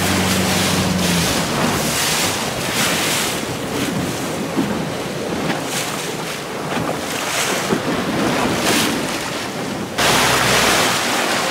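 Wind buffeting the microphone over choppy sea, with waves splashing and rushing in repeated surges. A low steady hum stops about a second in, and near the end the rushing noise jumps suddenly louder.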